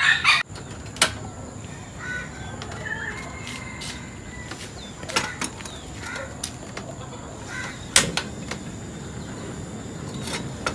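Several sharp clicks and light knocks as a clay cooking pot is handled on a portable gas stove, the loudest near the start and about eight seconds in, with faint bird calls in the background.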